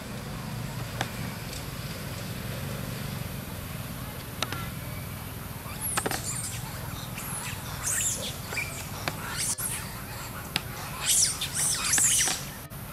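Short, high-pitched animal squeaks and chirps, many sliding down in pitch, starting about halfway in and coming louder and thicker near the end, over a steady low rumble.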